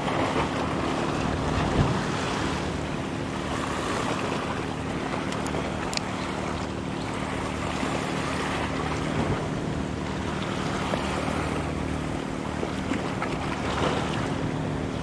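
Small waves washing and breaking on a rocky shore, with wind on the microphone and a steady low hum underneath.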